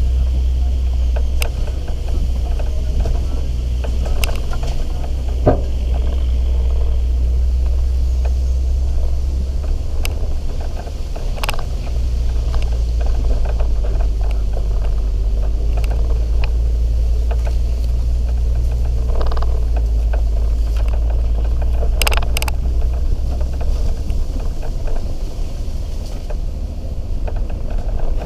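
An off-road 4x4 driving along a rough dirt track: a steady low rumble of engine and tyres, with scattered sharp knocks and clicks from bumps and stones.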